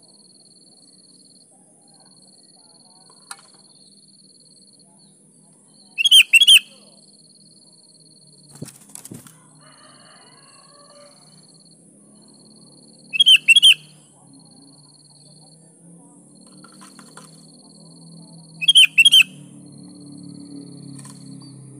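Sooty-headed bulbul calling: three loud, bright phrases of two or three quick notes each, spaced about six or seven seconds apart, over a faint steady high whine.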